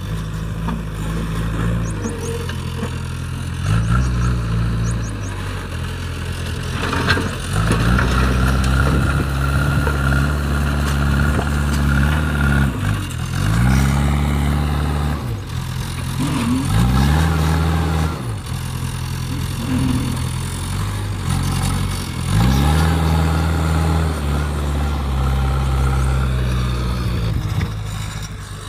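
JCB 3DX backhoe loader's diesel engine working under load, its revs dropping and climbing back again and again as the hydraulics are worked. A higher steady whine sounds for a few seconds near the middle, and there are a few sharp knocks.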